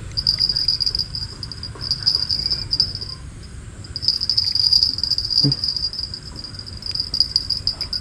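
Insects trilling in a high-pitched buzzing chorus that comes in phrases of one to two seconds with short gaps, over a low rumble. There is a soft knock about five and a half seconds in.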